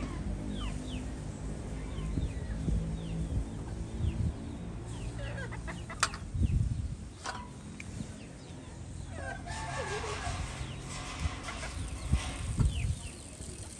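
Chickens clucking, with high, short falling peeps repeated throughout, over a low steady hum. There is a sharp click about six seconds in and another about a second later, and a wavering call a little past the middle.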